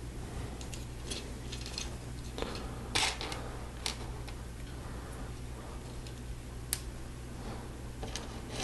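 Small plastic LEGO pieces clicking as they are handled and pressed onto a model, with white spike pieces being fitted onto clips. The clicks are scattered and irregular, the loudest about three seconds in, over a low steady hum.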